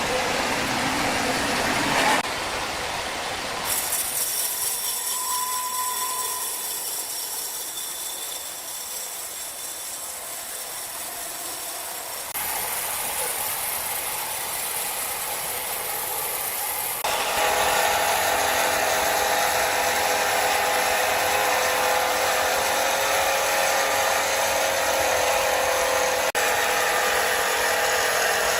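Sawmill machinery running steadily, its sound changing abruptly a few times, with a steadier, louder machine hum with sustained tones from about two-thirds of the way in.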